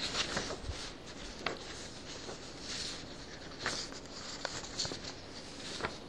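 Soft, irregular rustling with a few small clicks of handling, picked up close by a clip-on lapel microphone.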